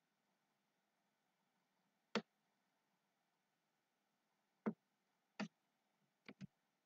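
Computer mouse button clicking five times over faint room tone, the last two clicks in quick succession.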